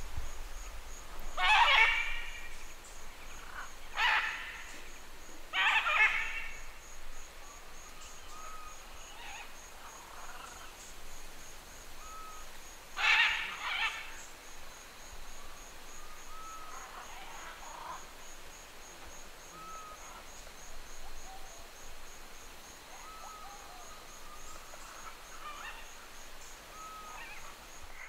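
A single green-winged macaw giving harsh flight calls at medium distance: several loud calls in the first half, then fainter ones. A faint, fast high-pitched pulsing runs behind them.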